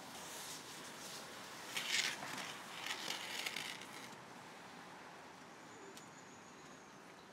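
Wet towel mop scrubbing the hot floor of a wood-fired cob oven: a run of hissing swishes, loudest about two and three seconds in, fading out after about four seconds.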